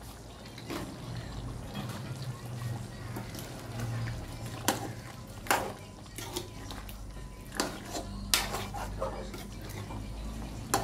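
Wooden spatula stirring chicken wings in gravy in an iron wok, scraping the pan with several sharp clacks against its side. A steady low hum runs underneath.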